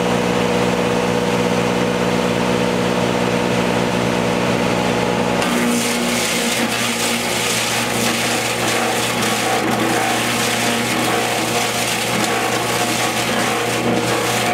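Tractor-mounted Posch post peeler running with a steady machine hum. About five seconds in, a debarked, high-density eucalyptus log goes into the cutter head, and a loud noise of wood being shaved joins the hum and carries on as the log is peeled.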